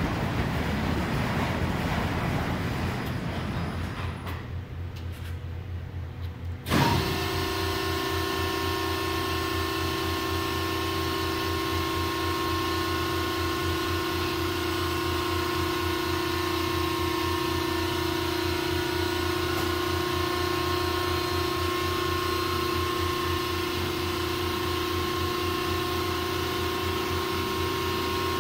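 Large industrial machine running: a rushing mechanical noise fades over the first few seconds, then about seven seconds in a sharp knock is followed by a steady motor hum with a low pulsing drone and a few constant whining tones.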